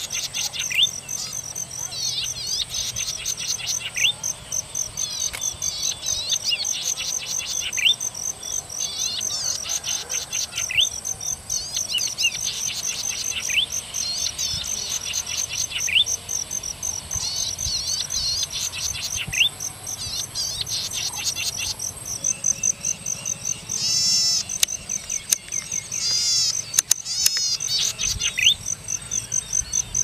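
Golden-headed cisticola singing: long high buzzing trills, each closed by a short rising note, repeated every few seconds.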